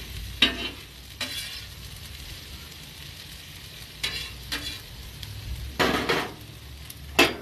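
Metal spatula scraping and stirring sliced bell peppers and onions on a hot griddle plate, over a steady sizzle of frying. There are several short scrapes, the loudest near the end.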